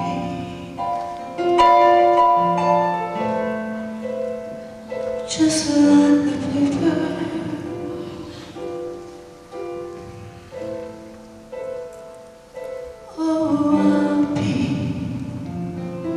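Piano playing a slow instrumental passage of sustained chords and single notes, with two louder, fuller chords about five and thirteen seconds in.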